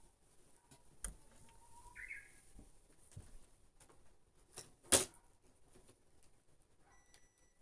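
Japanese bush warbler (uguisu) singing once, faintly: a long held whistle that rises a little, then a quick higher flourish. Two sharp knocks, the louder about five seconds in.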